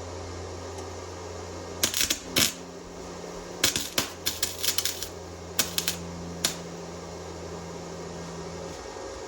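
Harbor Freight Titanium wire-feed welder arc popping and crackling in short, irregular bursts, first about two seconds in and then in a cluster a little later, over a steady hum. The popping comes from the gun being held too far from the metal.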